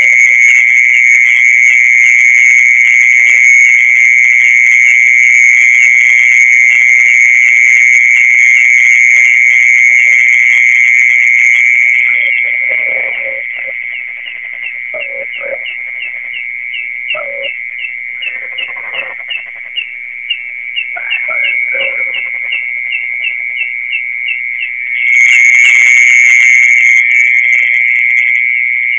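A loud, steady, high-pitched insect trill of the kind popularly called the earthworm's song in Indonesia, actually the song of a mole cricket. Partway through it drops to a softer, pulsing trill with a few short lower calls, then comes back loud near the end.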